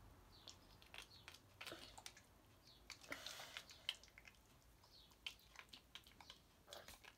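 Near silence: quiet room tone with faint scattered clicks and ticks.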